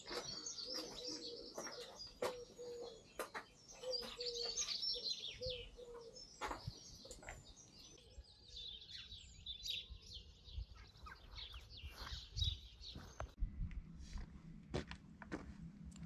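Small birds chirping and singing in quick high phrases, with scattered knocks and taps among them.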